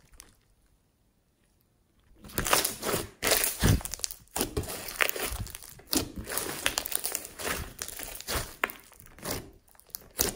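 Hands squishing and pressing glossy slime packed with foam beads, giving a wet crackling with many small clicks and pops. It starts about two seconds in, after a near-silent stretch.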